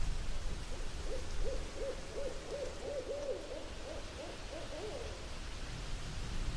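An owl hooting: a run of about a dozen short notes, each rising and falling in pitch, about three a second for some four seconds, over a steady low rumbling noise bed.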